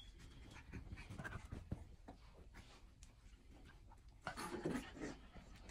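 Cocker spaniel puppies play-fighting on carpet: faint scuffling and scratching of paws and bodies, with a louder burst of scuffling a little past four seconds in.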